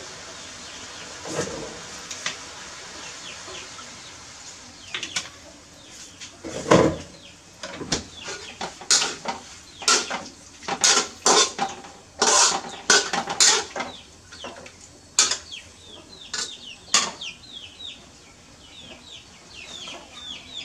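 Kitchen clatter: a series of sharp knocks and clinks of dishes and utensils, busiest from about five to seventeen seconds in, with short high falling peeps repeating through the latter part.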